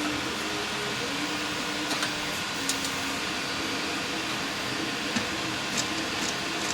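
A few light clicks and taps of metal parts as the front plate of an antique cash register is worked loose, over a steady background hiss.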